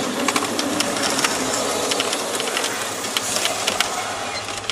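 Car driving in traffic, heard inside the cabin: steady engine and road noise with irregular light clicks and rattles.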